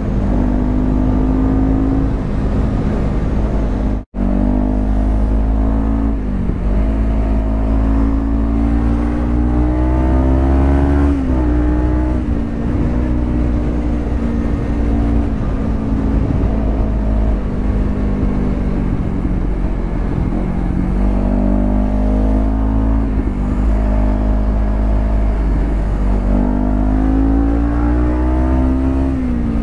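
Sport motorcycle engine pulling along a highway, its note rising with the throttle and dropping back at each gear change or roll-off, several times, over a steady low wind rumble. The sound cuts out for an instant about four seconds in.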